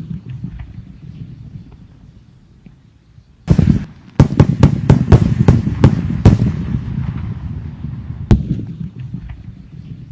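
Fireworks going off: a loud burst about three and a half seconds in, then a quick run of sharp cracks over the next two seconds and one more crack near the end, over a low rumble.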